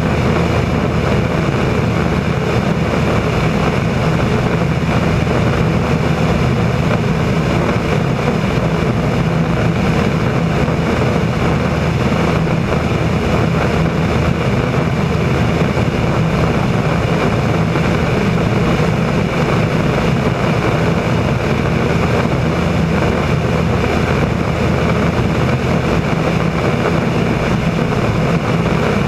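Single-engine propeller airplane in level flight: a steady engine and propeller drone with a low hum, mixed with the rush of air over the wing.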